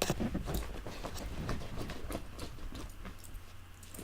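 A puppy moving about: a run of light, irregular taps and rustles, busiest at the start and thinning out.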